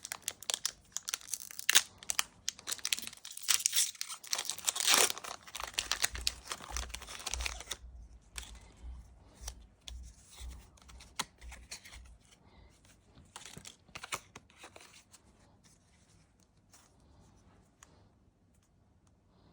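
Foil trading-card booster pack being torn open and crinkled, with the loudest tear about five seconds in. Then come sparser light rustles and clicks of handling, fading out over the last few seconds.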